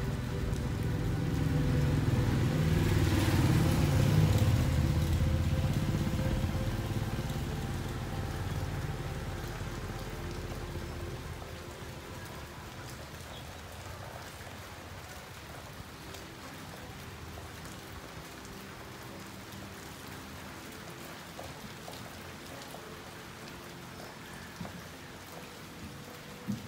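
Steady rain falling on a street. A motor vehicle's engine passes over it, loudest about four seconds in and fading out by about eleven seconds, leaving only the rain, with a few light ticks near the end.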